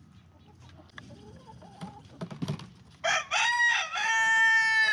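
Rooster crowing about three seconds in: a loud crow of a few short notes ending in one long held note. Before it, only a few faint clicks.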